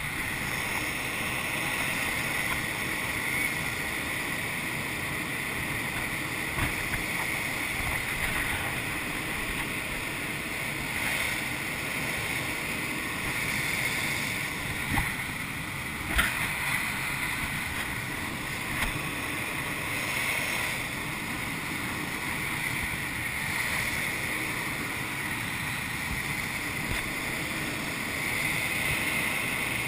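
Steady rush of air over a glider's canopy and airframe in flight: an even hiss with no engine, and a few faint clicks scattered through it.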